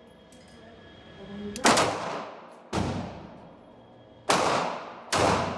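Four 9mm shots from a Sig P229 Legion DA/SA pistol at an uneven pace, the last two closer together. Each shot rings on in the echo of an indoor shooting range.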